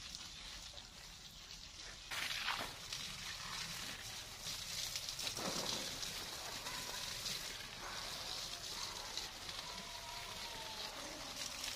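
Water from a garden hose spraying onto leafy trellised plants: a steady hissing, crackling patter that gets louder about two seconds in.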